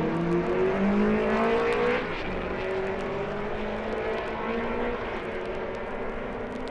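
Grand Prix racing car engines accelerating, their pitch climbing for about two seconds, then a fainter engine climbing again. Played from a vinyl sound-effects record, with surface clicks throughout.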